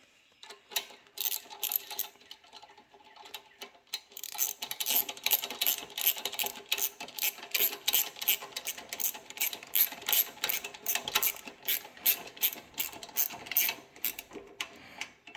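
Ratchet wrench clicking as it tightens the bolt that holds the mini bike's clutch onto the shaft. A few scattered clicks at first, then quick even strokes of about three to four clicks a second until near the end.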